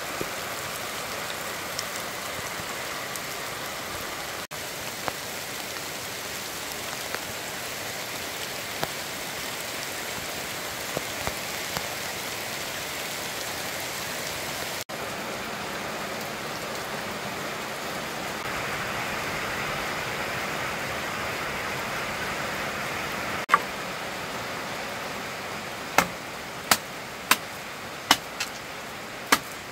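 A steady outdoor hiss, then near the end a machete chopping a green bamboo pole on a wooden block: about half a dozen sharp, separate chops within a few seconds.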